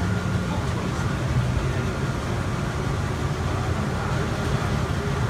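Atlanta airport's rubber-tyred automated people-mover train running through its tunnel, heard from inside the car: a steady running noise with a low hum.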